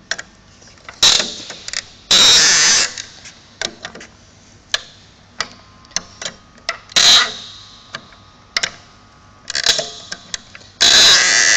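Steel locking tool turning the locking pins of plastic Bretby cable-handler segments into their locked centre position: irregular metal-on-plastic clicks and clacks with several short scraping rattles, the longest about two seconds in and another near the end.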